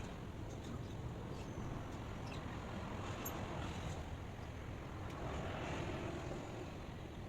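Steady ambient white noise, heaviest in the low rumble, with faint high chirps and ticks scattered through it.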